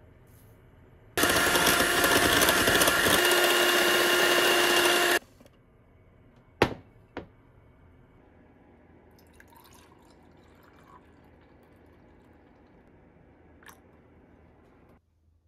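Electric hand mixer running for about four seconds, its beaters whipping cocoa powder, sugar and hot water in a glass bowl, then two sharp knocks about a second and a half later.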